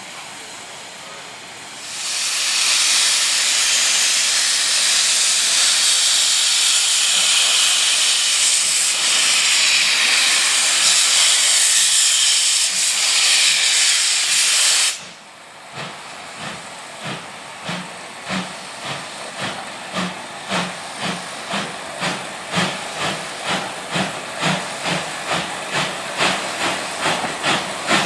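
Steam locomotive: a loud, steady hiss of venting steam starts about two seconds in and cuts off suddenly about halfway through. Then the exhaust beats in a row of chuffs, coming gradually faster, as the engine gets under way.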